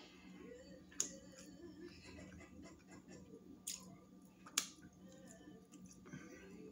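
Seafood shells being cracked and handled by hand while eating a seafood boil: three sharp cracks, the loudest about a second in and two more between three and five seconds in, with faint rustling and handling noise between them.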